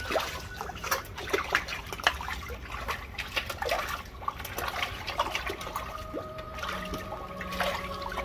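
Water lapping and sloshing against a quay wall and boat hull, with many small, quick splashes and trickles.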